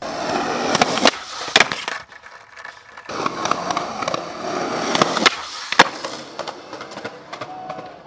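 Skateboard wheels rolling loudly over rough, gritty asphalt, broken by several sharp clacks from the board. The rolling eases for about a second near the two-second mark, then picks up again.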